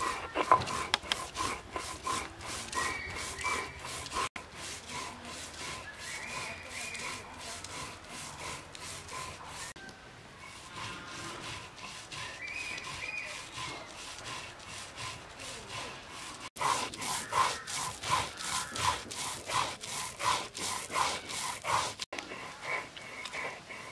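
Stone roller rubbed back and forth on a wet stone grinding slab (shil-nora), grinding spice paste. A rhythmic scraping of about two to three strokes a second, louder in the last seven seconds or so.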